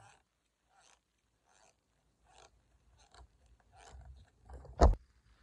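Deflated latex balloon being stretched and pulled between the hands: a run of faint short rubbery scrapes, then one loud sharp smack about five seconds in.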